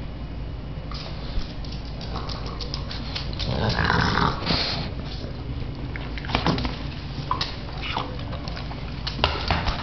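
A Boston terrier making dog sounds close to the microphone as it plays with its ball, loudest about four seconds in. Short clicks and knocks are scattered through it.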